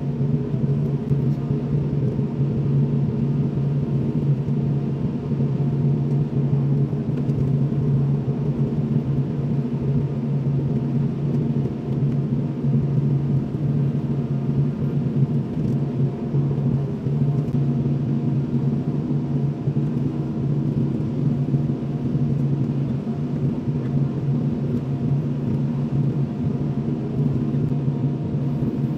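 Kobelco SK75SR excavator's diesel engine running at a steady, constant speed.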